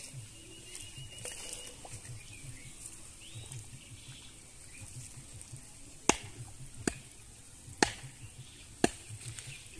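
Four sharp knocks about a second apart in the second half, over a faint steady high hiss.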